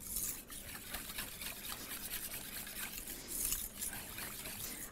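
A whisk stirring sour cream and sugar syrup in a stainless steel bowl: quiet, wet swishing as the mixture is beaten smooth of lumps.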